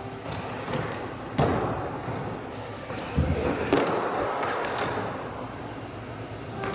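Radio-controlled monster truck tumbling and bouncing on a concrete floor. Its tyres and chassis land with sharp thumps about one and a half seconds in and twice around three seconds in, over wheel and floor noise.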